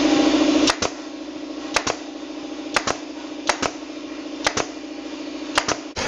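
Pneumatic brad nailer firing six times, about once a second, each shot a sharp double click. Under the shots runs a steady hum, loud at first and dropping sharply less than a second in.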